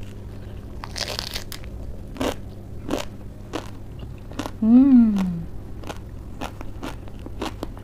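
Raw lettuce leaf being bitten and chewed, crisp irregular crunches throughout. About five seconds in, a short hummed 'mmm' that rises then falls in pitch, the loudest sound.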